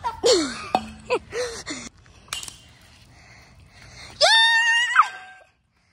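Wordless shouts and whoops from kids, falling in pitch, in the first two seconds. About four seconds in comes a long, high-pitched, wavering scream.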